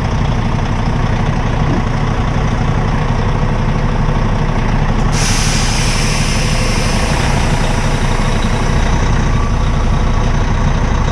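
Heavy diesel truck engines running steadily under load while a loaded dump truck is winched out of the mud. About five seconds in, a sharp hiss starts abruptly and carries on for a few seconds.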